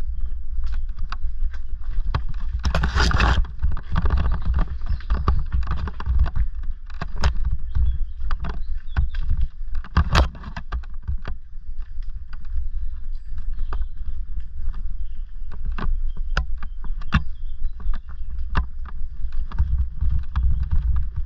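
Bafang-powered Orange Gyro e-bike ridden over a loose, rocky lane, heard from a helmet camera: a steady low rumble of wind and tyres, with frequent sharp knocks and rattles as the wheels hit stones. There is a louder rushing burst about three seconds in and a sharp crack about ten seconds in.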